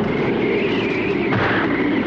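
Cartoon soundtrack: music mixed with a steady rumbling noise effect.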